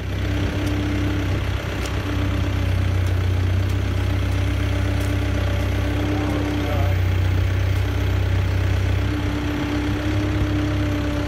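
Merlo telehandler's diesel engine running steadily with a low hum while its boom lifts the roof off a Land Rover.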